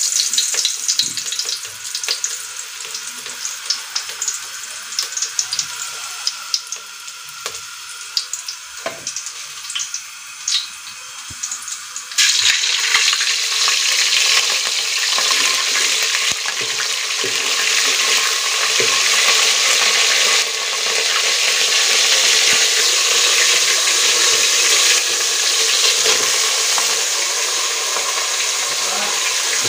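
Chopped onion frying in hot oil in a pot: crackling with scattered pops at first, then about twelve seconds in a sudden change to a louder, dense, steady sizzle.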